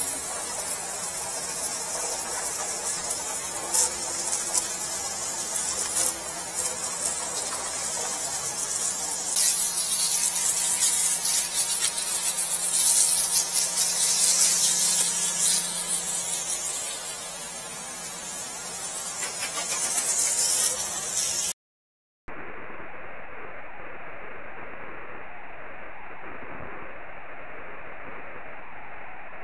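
High-pressure water spray hissing from a drain-jetting lance at a sewer cleanout, with a steady low hum beneath. The hiss swells louder near the middle. About 21 seconds in it cuts off and gives way to a duller, even rushing noise.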